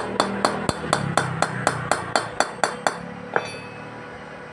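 Quick, light hammer taps, about four a second, on a weld blob built up on a broken bolt seized in a Yamaha Jupiter cylinder head, to shock the bolt loose from its threads. The tapping stops about three seconds in, with one last tap a moment later.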